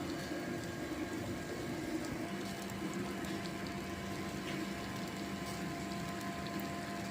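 A steady hum with an even hiss underneath, and a second humming tone joining about two seconds in.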